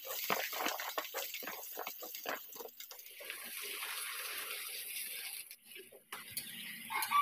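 Raw potato chunks dropped into hot oil in a wok, sizzling with dense crackling, then frying with a steadier hiss as a metal spatula stirs them.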